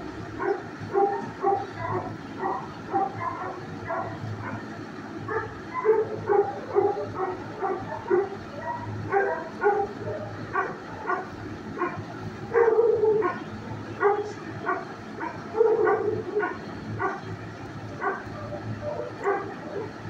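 Dogs barking in a shelter kennel, short barks coming one after another throughout, over a steady low hum.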